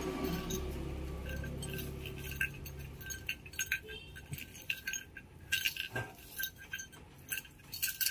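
A cat teaser toy being shaken, giving light, irregular clinks and jingles.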